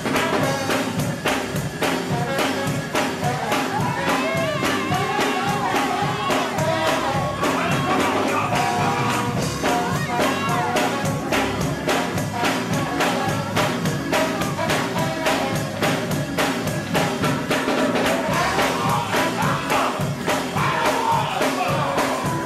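Live gospel music: a choir of men's voices singing over a drum kit keeping a steady, fast beat.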